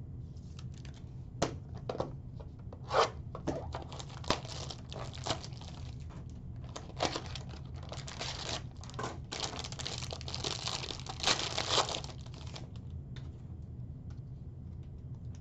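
Plastic wrapping on trading-card packaging being torn open and crinkled, with scattered sharp clicks and rustles that are densest near the end.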